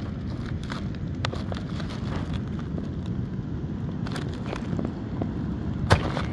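Steady low wind rumble on the microphone, with plastic packaging crinkling and light clicks as frozen whole sardines are pulled from their bag. There is a sharper click near the end.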